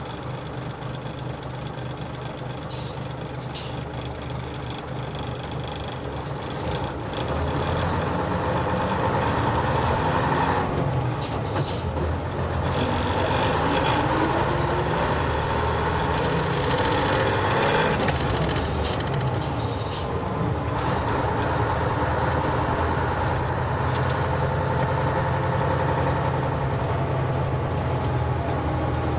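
Nissan Diesel city bus's diesel engine heard from the cabin floor. It idles, then pulls away about seven seconds in, its note rising twice as it accelerates through the gears, and then settles into a steady run. Short hisses of air come about three seconds in and again around eleven and nineteen seconds.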